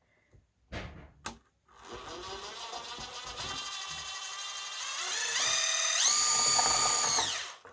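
Small electric drill motor whirring. Its pitch climbs and steps up as it speeds up, holds steady at full speed, then stops near the end.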